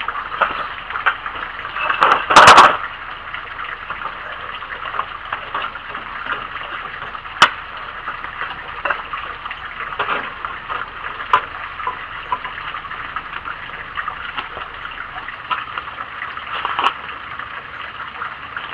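Sticks being handled and pushed into the feed opening of a rocket stove built into a charcoal grill: scattered small clicks and knocks, with one louder clatter about two seconds in, over a steady hiss.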